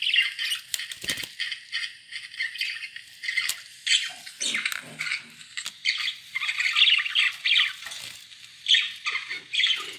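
Budgerigars chattering and warbling: a dense, unbroken stream of short high chirps and squawks. A few short knocks or taps cut through it, the clearest about a second in.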